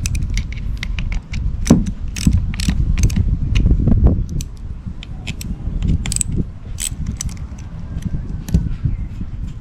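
Hand tools clicking and clinking against metal parts in irregular sharp clicks, as studs are being moved over to a new diverter valve.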